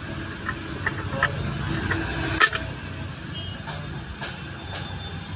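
Steel gears and shaft of a Swaraj Mazda truck gearbox clinking against the gearbox casing as the gear cluster is set into place by hand: a few light clicks and one sharper clink a little past halfway, over a steady low background rumble.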